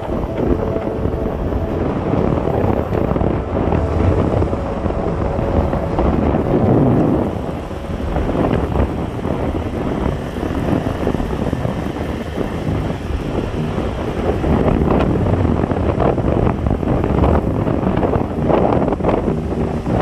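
Wind buffeting the microphone while riding in a moving car, over steady road and engine noise.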